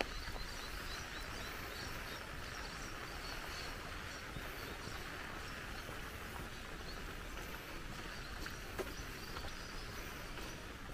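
Steady rush of flowing water, swollen after heavy rain, with small birds chirping in short repeated calls over it.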